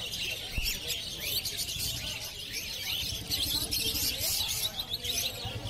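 A cage full of lutino rosy-faced lovebirds chirping, many shrill, quick calls overlapping. From about halfway a low, evenly pulsing motor hum joins in underneath.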